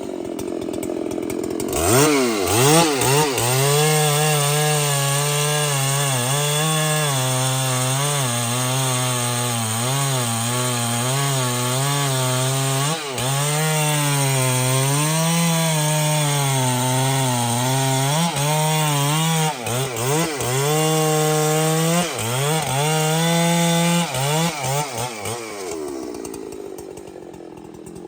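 Large two-stroke chainsaw revving up about two seconds in and cutting into trembesi wood for some twenty seconds. Its engine pitch sags and recovers under load, with a few quick blips of the throttle, then drops back to idle near the end.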